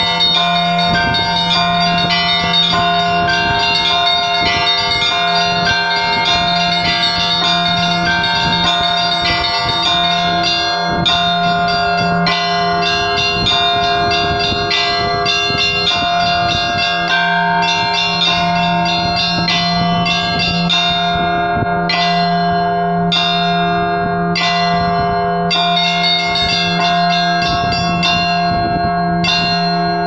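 Russian Orthodox church bells rung by one ringer, whose ropes pull the bells' clappers: a large bell's low tone hums steadily under quick, rhythmic strokes of the smaller, higher bells. From about ten seconds in, the small-bell strokes stand apart as distinct strikes with short gaps between phrases.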